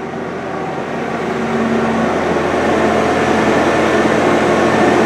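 Skid steer engine running steadily, growing somewhat louder over the first few seconds.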